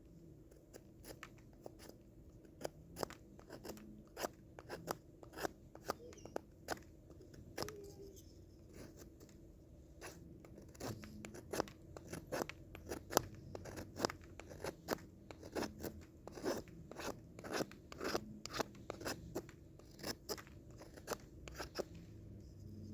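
Folding pocket knife blade cutting into wood in repeated short crunching strokes, irregular, sparser at first and coming faster after about ten seconds.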